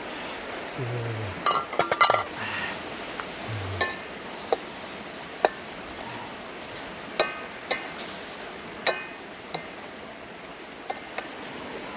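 Aluminium wok lid clattering as it is lifted off, then a spatula knocking against the metal wok about eight times, some knocks ringing, while octopus and onion are stirred. A steady rush of river water runs underneath.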